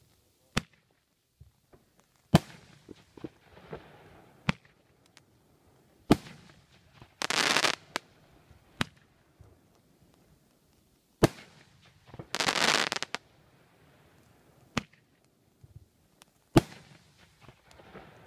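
Fireworks going off: about eight sharp bangs a second or more apart, some trailing into crackle. Twice there is a hissing rush about a second long.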